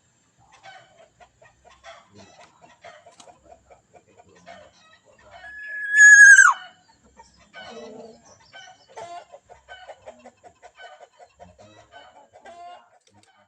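Black-naped oriole call used as a lure: one loud, held nasal note about six seconds in that drops in pitch at its end, among softer, rapid chattering notes.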